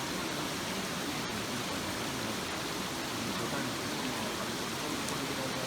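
Mountain stream in a gorge rushing steadily over rocks, a constant even wash of water noise.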